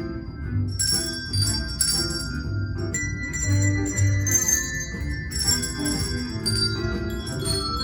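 Handbells ringing a tune: a quick stream of struck notes, high and low, each ringing on with bright overtones.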